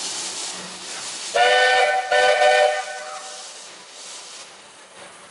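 Steam whistle of a Hugh Phillips-built oil-fired 4-4-0 steam locomotive giving two short blasts in quick succession, over the hiss of escaping steam that then fades. Two short blasts are the usual signal that the train is about to move off.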